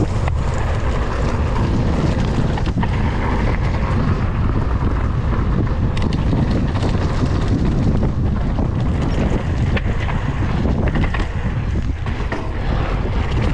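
Wind buffeting the microphone of a rider-mounted action camera on a mountain bike at speed, over the rumble of knobby tyres rolling on a dirt track, with scattered short knocks and rattles from the bike on the bumps.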